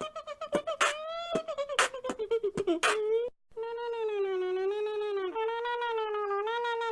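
Beatboxing: sharp mouth clicks and percussive hits over a hummed tone for about three seconds, then after a short break one long, slightly wavering hummed note held by the voice.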